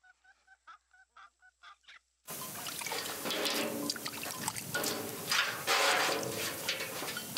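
Water pouring and splashing into a metal basin, starting about two seconds in. Before it, near silence with faint quick call notes repeated about four times a second.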